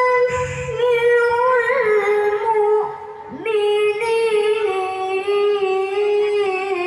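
A high voice chanting a Qur'an recitation (tilawah) in long, ornamented held notes, with a breath pause about three seconds in before the chant resumes on lower notes.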